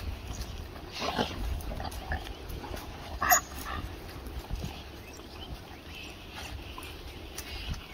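African wild dogs squabbling over a meat carcass: one dog gives a short, high-pitched call about three seconds in, with a fainter call about a second in.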